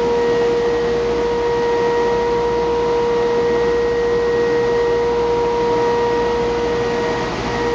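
Timesavers 3300 series wide belt sander running, its vacuum-bed blower drawing air through the bed: a steady rush of air with a steady high whine.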